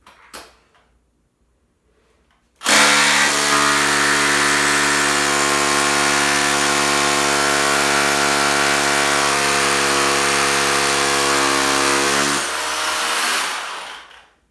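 Milwaukee 2712-20 SDS Plus rotary hammer drilling a 3/16-inch hole into concrete, a loud steady hammering buzz that starts about three seconds in, runs for about ten seconds, then winds down and stops near the end.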